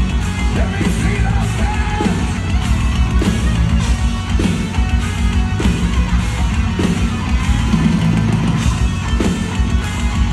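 Live heavy metal band playing loud through a stadium PA, distorted electric guitar over drums, with heavy accents about once a second.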